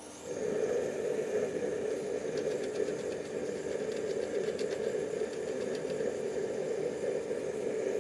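Propane torch burner firing into a gas forge: a steady rushing burner noise that comes on suddenly and holds, with a few light metallic clicks partway through as the burner's clamp is handled.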